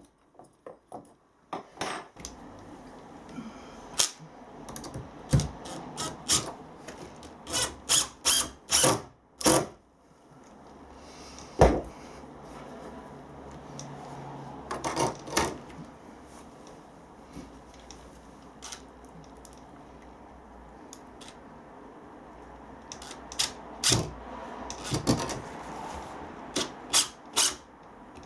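Hand work fitting a steel bolt to a wooden window frame: a string of sharp clicks, taps and knocks of metal hardware and tools, in clusters, over a steady faint background hum.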